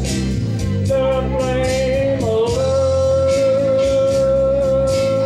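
Backing music with a steady beat, and a long high note held for about four seconds over it.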